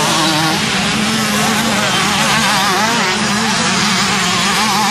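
Motocross bike engines revving, their pitch rising and falling quickly over and over, over a steady lower engine drone.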